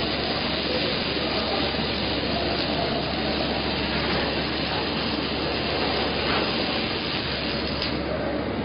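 Steady hiss and rumble of machinery running, even throughout with no distinct strokes or rhythm.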